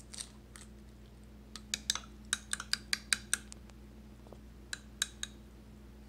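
Metal spoon clinking against a glass bowl while beating a raw egg: a quick run of light clicks, about five or six a second, starting a second and a half in, then three more near the end.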